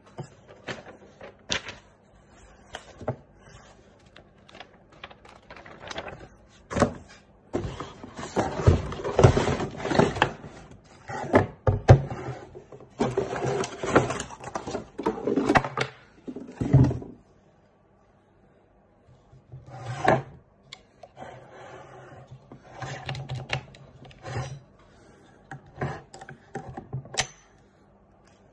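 Cardboard box and paper packaging rustling, with scattered knocks as a cordless jigsaw is lifted out of its box and set down on a tabletop. The handling is busiest and loudest in the middle, with a short pause before quieter rustling resumes.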